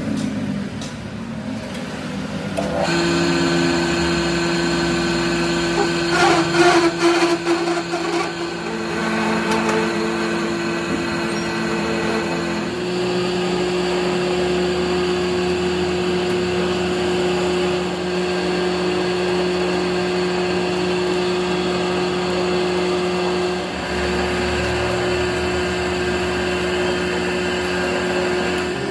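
Metal lathe running with a steady whine as a cutting tool grooves a rusty steel cylinder. The whine comes up about three seconds in, with a stretch of rattling around six to eight seconds in, and it steps up slightly in pitch about thirteen seconds in.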